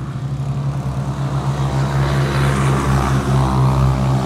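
A motor vehicle's engine running close by, a steady low hum that swells and grows louder over the last couple of seconds, as of traffic passing on the adjacent road.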